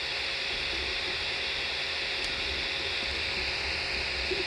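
A 3D printer running mid-print as it lays down the first layer: a steady fan whir and hiss with a faint low hum beneath.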